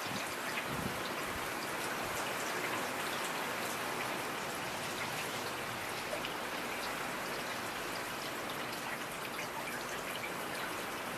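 Steady rain: an even hiss of falling rain with scattered individual drops ticking on a surface.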